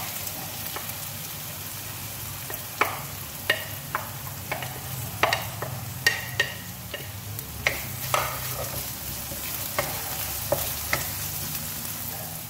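Chopped onion sizzling in hot oil in a non-stick wok with garlic and ginger. About a dozen irregular sharp knocks come from utensils against the plate and pan as the onion is scraped in and stirred with a wooden spoon. A steady low hum runs underneath.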